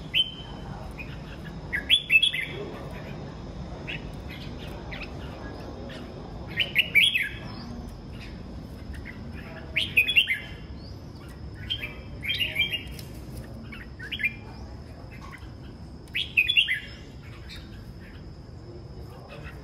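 Red-whiskered bulbuls singing, short bright warbled phrases coming every two to three seconds, about seven in all.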